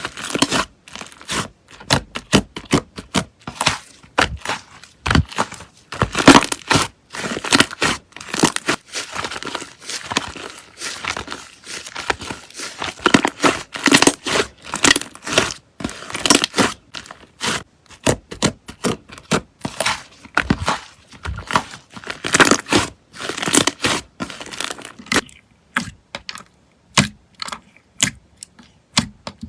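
Slime being squeezed, stretched and pressed by hand, giving a dense run of sticky crackles and popping clicks. About 25 seconds in, it thins to a slower series of separate sharp clicks.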